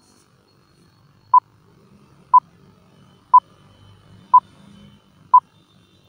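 Countdown-timer sound effect from a film-leader countdown: five short beeps of the same pitch, one a second, over a faint low rumble.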